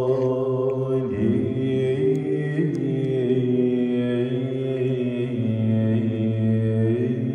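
Slow, drawn-out male chanting from a Mevlevi Sufi ensemble over a held low drone, the melody moving slowly in pitch: the sung opening of a sema ceremony.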